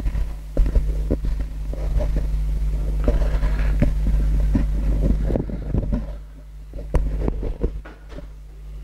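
Billiard balls rolling across the table after a hand throw: a low rolling rumble for about five and a half seconds, then stopping, with sharp knocks of balls striking each other and the cushions. The pallino slips into a pocket.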